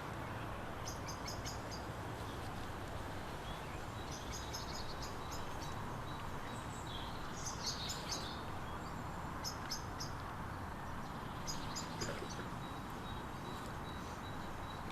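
Small birds singing in short phrases of quick, high repeated chirps, about five phrases spread through, over a steady outdoor background hiss.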